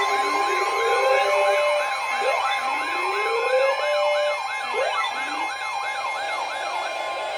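Several electronic emergency sirens sounding together as an alert's attention sound: a fast yelp sweeping up and down about three times a second, slower wails that rise again and again, and a steady high tone underneath.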